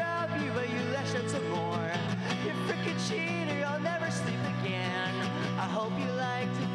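Live acoustic guitar strummed steadily under a singing voice: a solo singer-songwriter's song played through the arena's PA.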